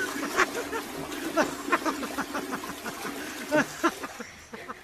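Toilet flushing, water rushing steadily into the bowl and fading out about four seconds in. Over it a person laughs repeatedly in short falling syllables.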